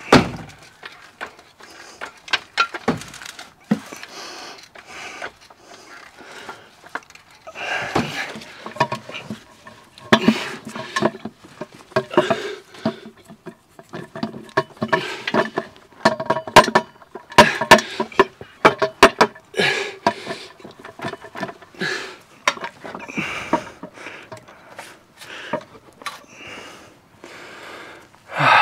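A man grunting and straining with effort while lifting a heavy manual gearbox up into place beneath a car. Irregular metallic clunks and knocks sound as the gearbox and its bolts meet the engine.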